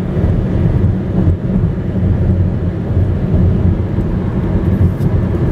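Steady low rumble of road and engine noise inside a car cruising at highway speed.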